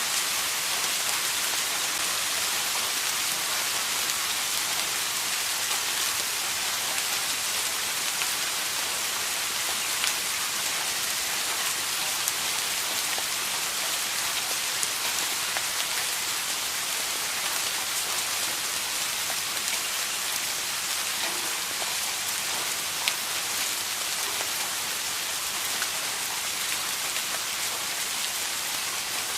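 Steady rain falling, an even hiss with now and then a single louder drop.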